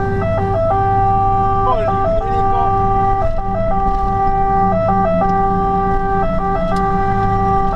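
Fire engine's two-tone siren sounding over the truck's engine running under load, heard from inside the cab. The siren holds one note and drops briefly to the other about every second and a half.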